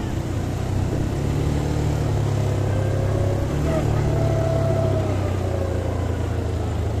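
ATV engines running steadily under way, a low hum that shifts pitch slightly about halfway through.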